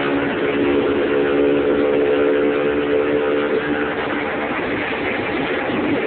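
Moped engine running steadily under way, with wind rushing over the microphone. The engine's steady note fades into the wind noise about four seconds in.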